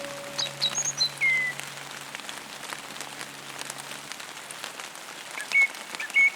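Steady rain patter with birds singing: a few quick high chirps and a falling whistle in the first second or so, then a run of short repeated notes near the end. A soft held music chord fades out about four seconds in.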